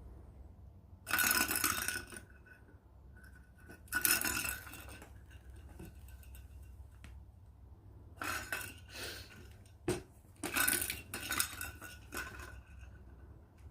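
Hard objects clattering and clinking in several bursts of a second or two each, with a ringing, dish-like tone in the clatter, and one sharp click about ten seconds in.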